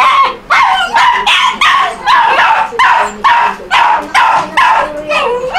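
Small dog barking in a fast, steady run, about two to three barks a second.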